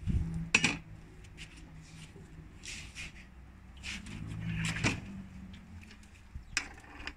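A few sharp knocks and clatters from a stove being got ready to light, the loudest about half a second in and just before five seconds, over a faint low hum.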